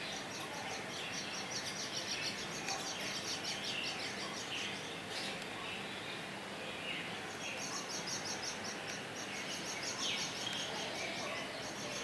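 Birds calling: fast trains of high, repeated chirps in two long stretches, the second starting a little past halfway, with scattered lower calls in between.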